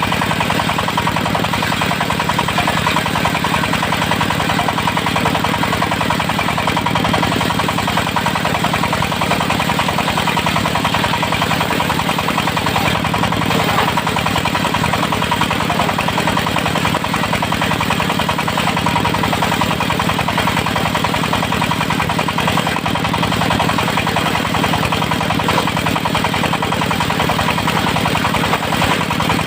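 Engine of a portable circular sawmill running steadily with its saw blade, a constant loud hum that does not change.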